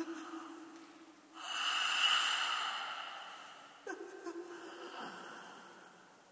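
A person's heavy breathy vocal sounds: a low held moan, then a long loud breathy exhale about a second and a half in that slowly fades, and another short low moan about four seconds in.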